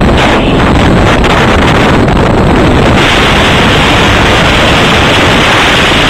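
Loud, steady wind buffeting and road noise on a phone microphone riding in a moving vehicle, turning harsher about three seconds in.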